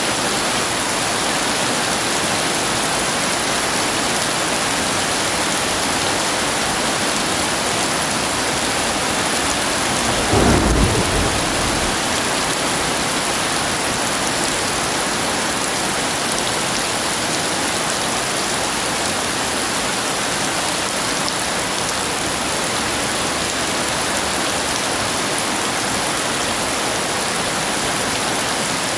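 Heavy rain hissing steadily, with a single loud clap of thunder about ten seconds in that rumbles off over a second or so.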